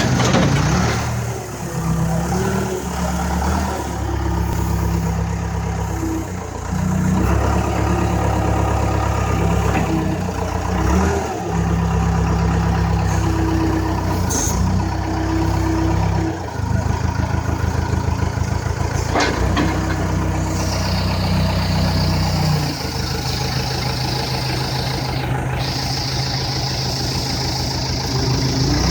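Backhoe loader's diesel engine running, its speed rising and falling repeatedly as the machine works, then settling to a steady idle about three quarters of the way through.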